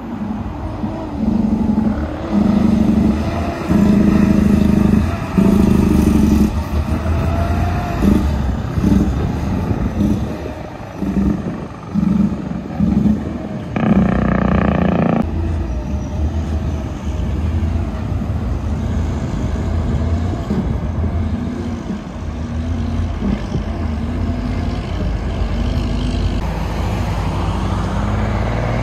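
Road traffic passing close by: engines of minibuses, cars and heavy trucks running with a pulsing low drone, loudest in the first third. About halfway through a loud pitched blast sounds for about a second and a half, and near the end an engine revs up.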